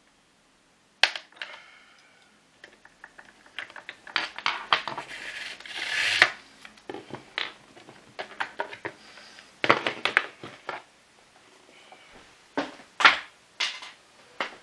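Hard plastic clicks, knocks and rattles from a Vax ONEPWR Edge vacuum floor head as its brush roll is unclipped and pulled out, with a brief scrape about halfway through.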